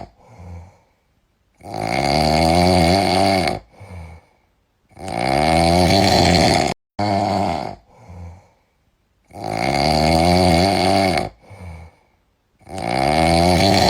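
A sleeping cat snoring loudly and rhythmically: four long snores about every three and a half seconds, each lasting around two seconds, with soft breaths between them.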